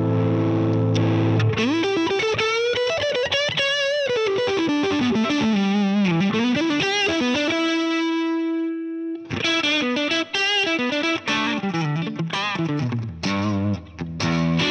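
Electric guitar played through a Fractal Axe-Fx III modelling a Marshall Plexi 50-watt amp, with a crunchy overdriven tone. A chord rings, then a single-note lead line with vibrato runs into a long held note, and after a short break about nine seconds in come short, choppy chords.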